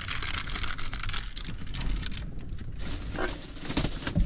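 Close rustling and crinkling with many light clicks as a small plastic packet is handled and things are moved about.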